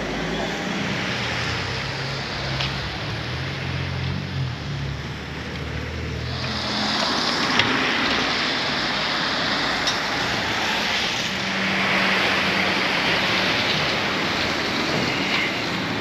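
Car driving slowly along a rain-wet town street: low engine hum with road noise, and a steady hiss of tyres on the wet pavement that grows louder about six and a half seconds in.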